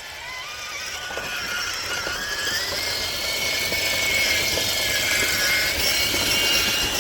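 Traxxas TRX-4 RC crawler on Traxx tracks: its electric motor and geared drivetrain whine as it drives. The whine rises in pitch over the first couple of seconds, then holds steady and grows louder.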